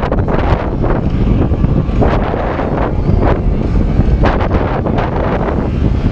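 Wind buffeting the microphone: a loud, steady low rumble with irregular gusts.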